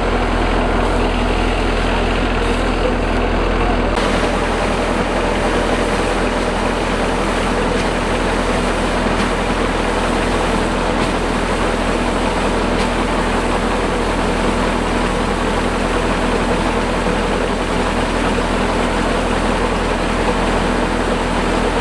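Combine harvester engine running steadily under a broad mechanical rush. About four seconds in, a brighter hiss joins and then holds.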